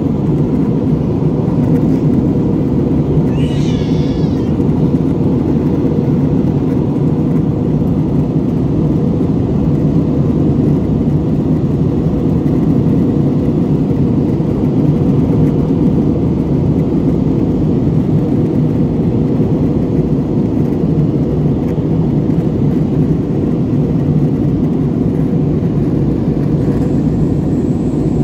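Steady, deep noise of a jet airliner's engines and rushing air heard inside the cabin. A brief high-pitched, wavering cry sounds about three seconds in.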